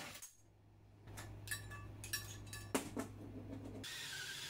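Ryobi cordless drill with a hole saw cutting through a wardrobe's bottom panel. The drill stops just after the start, and a few light metallic clinks follow. Near the end the drill starts again, its motor whine dipping and rising in pitch as the saw bites.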